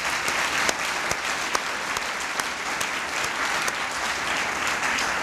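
A large seated audience applauding, a steady mass of hand claps.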